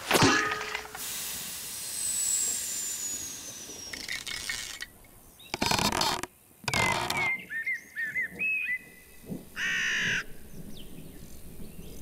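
Cartoon sound effects for an animated snail: a sharp hit, a long falling whistle, then two soft thuds as a wad of pink chewing gum lands on its shell. Short squeaky chirps follow, then a croaky, caw-like call near the end.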